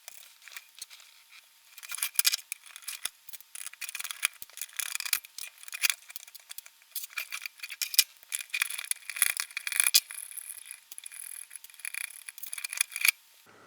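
Control board being taken out of a bench power supply: irregular small clicks, scrapes and rattles of the board and parts being handled, stopping suddenly near the end.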